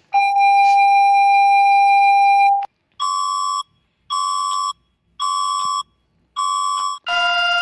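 South Korean emergency alert tone: one long steady electronic tone for about two and a half seconds, then four short, higher-pitched beeps about once a second. Near the end a different, denser alert tone starts abruptly.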